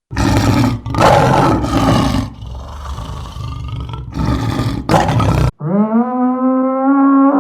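Lion roaring in several loud, rough bursts, the middle one quieter. About five and a half seconds in, the roar stops and a long, steady-pitched cow moo begins.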